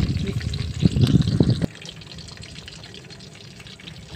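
Whole fish frying in hot oil in a wok, a steady crackling sizzle. A loud low rumble covers the first second and a half and cuts off abruptly.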